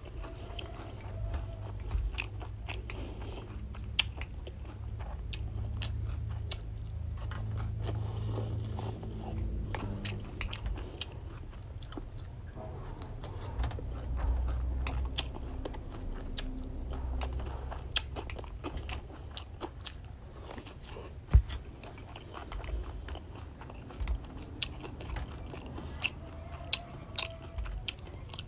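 Close-up chewing of rice noodles and fresh greens, with chopsticks and a spoon clicking against a ceramic bowl again and again. One sharp clink stands out about two-thirds of the way through.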